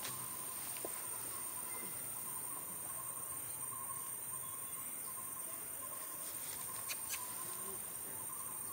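Steady outdoor insect trilling, a thin, faintly pulsing high note over a constant hiss, with two short clicks about seven seconds in.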